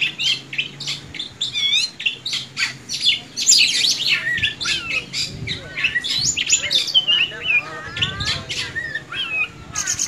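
Caged oriental magpie-robin (kacer) singing a fast, varied run of high chirps and whistled notes that sweep up and down, with a quick series of short falling notes about three-quarters of the way through.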